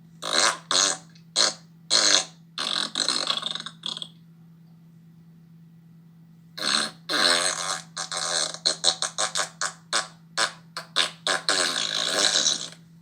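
Fart sound effects. A handful of short blasts and a longer rattling one come in the first four seconds, then after a pause a long run of quick sputtering farts ends in a drawn-out one. A steady low hum lies underneath.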